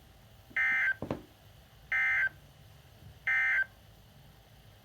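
Weather radio sending the EAS end-of-message code: three short, identical buzzy data bursts about 1.3 seconds apart, marking the end of a severe thunderstorm warning broadcast. A brief low thump comes just after the first burst.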